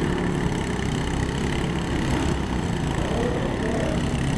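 Lawn mower engines running with a steady low drone.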